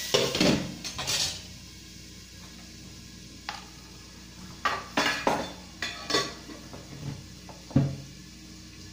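Metal spatula scraping and clattering in a stainless-steel kadai of frying onions, with the sizzle dying away. A lid is then set on the pan, followed by a scatter of sharp metal clinks and knocks, the loudest near the end.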